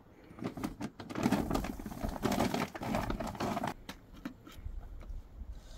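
Rustling and clicking of objects being handled close by: a dense stretch starting about a second in and lasting some three seconds, then a few scattered clicks.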